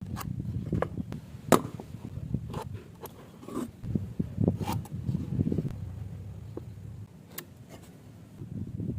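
Hand woodworking with a chisel on wood: irregular knocks and short scrapes of the tool and the workpiece, with one sharp, loud knock about a second and a half in.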